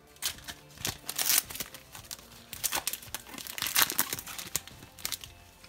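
A trading card pack wrapper crinkling and being torn open by hand, with irregular crackles and two louder rips, about a second in and near four seconds in.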